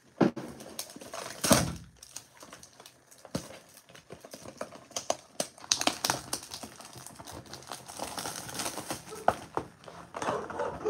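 Cellophane shrink-wrap being torn and pulled off a cardboard trading-card box: irregular crinkling and crackling with sharp rips, loudest in the first two seconds.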